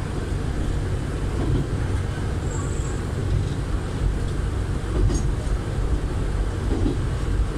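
Running noise inside a Kantō Railway KiHa 310 diesel railcar under way: a steady low rumble of engine and wheels on rail. A short high tone comes about two and a half seconds in, and a click about five seconds in.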